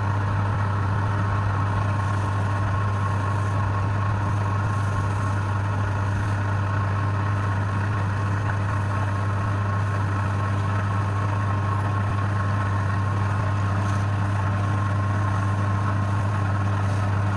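Wood lathe running steadily, a constant low hum with a fainter steady whine above it.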